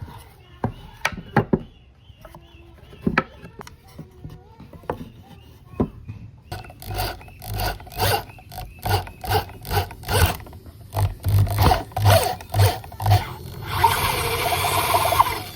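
Hand-tool work: scattered taps and knocks, then regular rasping strokes a little over two a second, like filing or sawing. Near the end a short steady whir of a small power tool.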